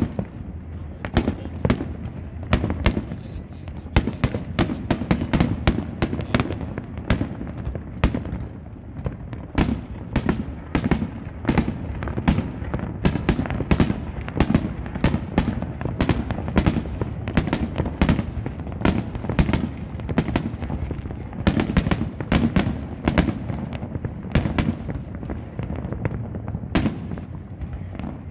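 Fireworks display: aerial bursts going off in rapid succession, sharp bangs and crackles several times a second over a continuous low rumble, thinning out a little near the end.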